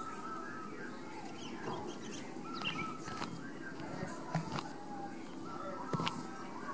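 Outdoor ambience through a compact camera's built-in microphone (Lumix TZ30): distant bird calls over a steady high whine, with a few sharp clicks near the end.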